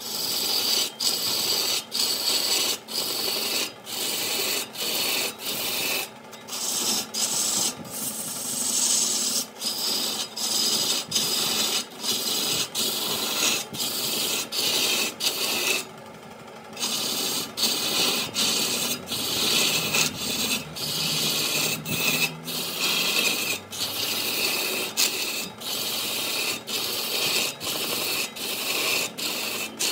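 Wood being worked on a spinning lathe: a rasping scrape in short repeated strokes, about two a second, with a brief pause about halfway through.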